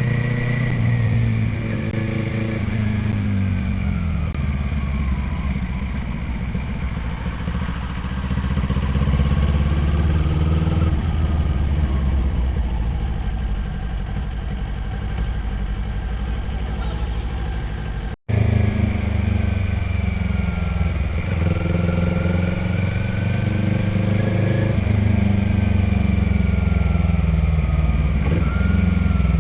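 Motorcycle engine and exhaust under way, engine speed rising and falling again and again as the bike accelerates, shifts and eases off. The sound drops out for an instant about two-thirds of the way through.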